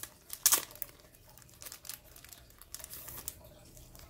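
Clear plastic wrapper crinkling as a packet of mini photo cards is worked out of it: a sharp crinkle about half a second in, then lighter scattered crinkles.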